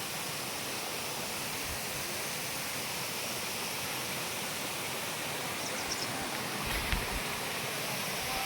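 Steady rushing noise with a few faint light ticks a little after the middle.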